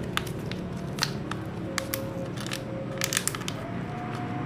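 Scattered sharp clicks and taps of batteries and their packaging being handled as they are unpacked, with a quick cluster of clicks about three seconds in.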